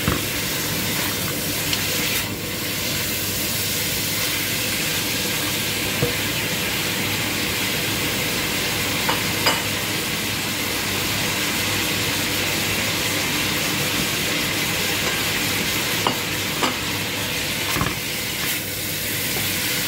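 Pork ribs, corn and bell pepper sizzling steadily in a frying pan, with a metal spatula clicking and scraping against the pan now and then as the food is stirred.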